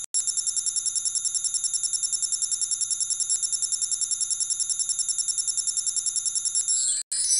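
A bell-like ringing sound effect, like a telephone or alarm bell: a rapid, even trill of about a dozen strokes a second, steady for over six seconds. Near the end it changes to a brighter, jingling chime.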